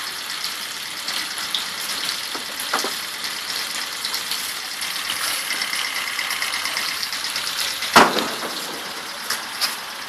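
2006 Yamaha F15 four-stroke twin-cylinder outboard motor running steadily at idle, with a fine mechanical ticking. A single sharp knock sounds about eight seconds in.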